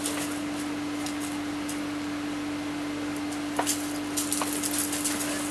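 A steady hum over a background hiss, with a few short crunches about two thirds of the way through as the heavy mastiffs shift their feet on the gravel path.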